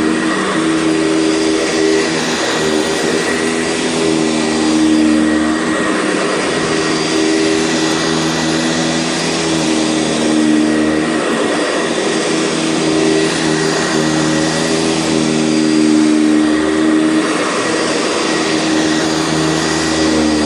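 Sanitaire SC679 commercial upright vacuum cleaner running steadily with a motor hum and whine, its level swelling and easing every five or six seconds.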